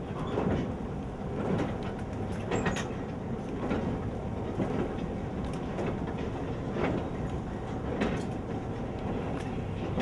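Airport baggage carousel running: a steady rumble from the moving conveyor, with a clack about once a second.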